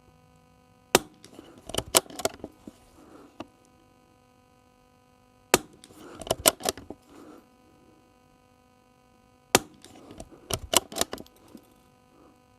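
Suppressed Tikka T1X .22 LR bolt-action rifle fired three times, about four seconds apart. Each shot is a short sharp crack followed by a quick run of metallic clicks as the bolt is worked for the next round.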